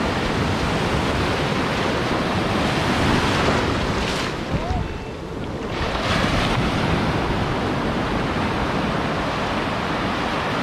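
Sea surf breaking and washing on a sandy beach, with wind on the microphone; the wash eases briefly about halfway through, then builds again.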